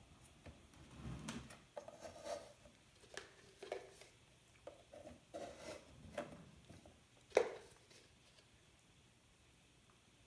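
Faint handling sounds: soft taps and rustles as soaked rockwool cubes are set and pressed into plastic net cups in a bucket lid, with one sharper click about seven seconds in.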